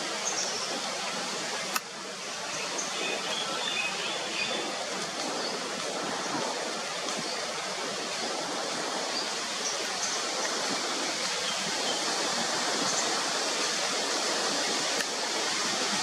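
Steady outdoor rushing noise, with faint high chirps here and there and one sharp click about two seconds in.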